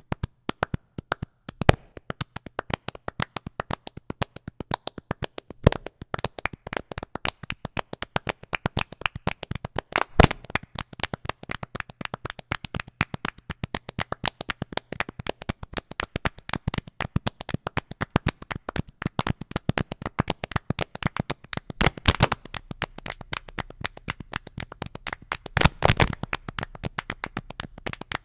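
Body percussion: rapid, dense hand claps, with a few heavier, louder hits mixed in that fit foot stomps.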